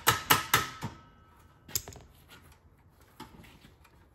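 Sharp metal clicks and knocks from handling a truck seat's steel frame and its mechanism: a quick run of about five clicks in the first second, then single knocks about two and three seconds in.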